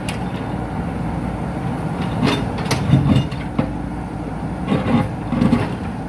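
JCB 3DX backhoe loader's diesel engine running steadily, with knocks and clattering of broken bricks as the backhoe works through demolition rubble, in two clusters from about two seconds in and again near the end.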